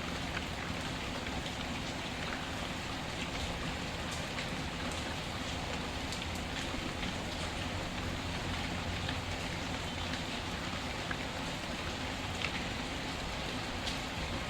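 Steady rain, with faint scattered crackles from a wood fire.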